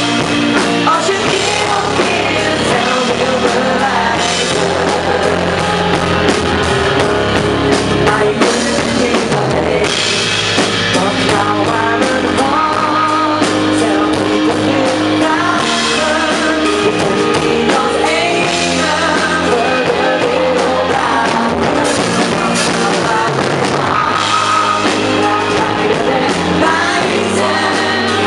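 A live band playing a song with drums, with a singer's voice over it.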